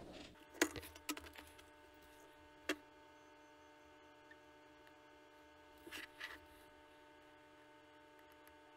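Faint clicks and taps as a metal project box and a soldering iron are handled: a few sharp clicks in the first three seconds and a couple of soft knocks about six seconds in. Under them runs a faint, steady electrical hum.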